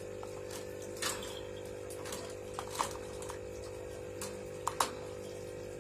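Scattered clicks and light knocks of a plastic hamster house being fitted onto the wire bars of a hamster cage, about half a dozen in all. A steady hum runs underneath.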